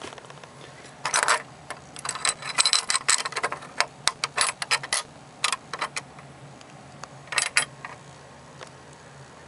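Metal clicking and rattling of a universal antenna mount being handled, its U-bolt and clamp clinking against the steel bracket, in irregular bursts from about a second in until near the end.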